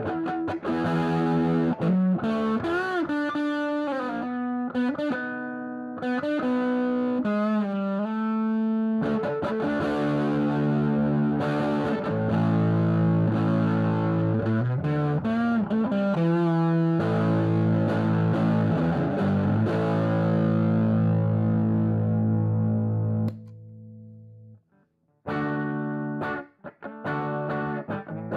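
Electric guitar (a Reverend Sensei RA) played through the Red Llama-style overdrive side of a handmade Big Red dual germanium boost/drive pedal into a Bluesbreaker-style amp: distorted single-note licks with string bends, then held chords that ring out and die away. After a short gap, choppy short chords start up.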